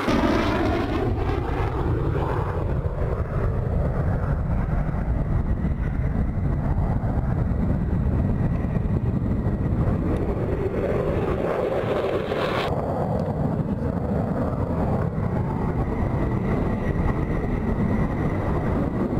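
F-16 fighter jets' engines rumbling loudly as the jets take off and climb away. A falling whine in the first few seconds marks one jet passing by.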